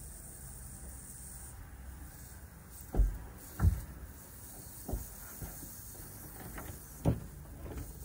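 Handling knocks in a crawlspace: four dull knocks about three seconds in, just after, near five seconds and near seven seconds, over a steady low rumble.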